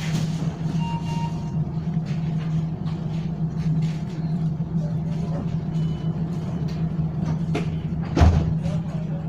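Steady low hum of a tram's onboard equipment while the tram stands at a stop, with a single thump about eight seconds in.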